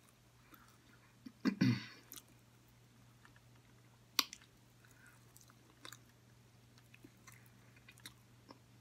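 Close-up chewing and mouth sounds of a person eating a bone-in chicken wing, with a short louder hum-like sound from the mouth about one and a half seconds in and a sharp smack or click about four seconds in. A steady low electrical hum runs underneath.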